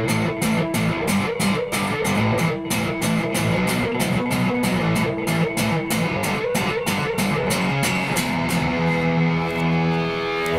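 Electric guitar played through Fairfield Circuitry effects pedals: a fast, even run of repeated picked notes, several a second, giving way about eight seconds in to a long held chord that rings on steadily.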